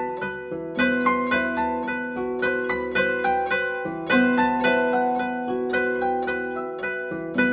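Background music: a gentle melody of plucked notes, each ringing out and fading, several notes a second.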